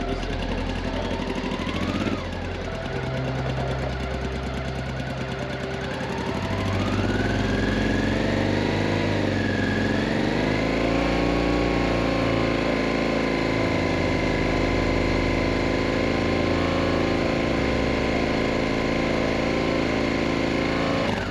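Honda XRV750 Africa Twin's 750 cc V-twin engine running for a stationary noise test: idling, blipped once about two seconds in, then revved up around six seconds in and held steady at raised revs. It passes the test at 86 decibels.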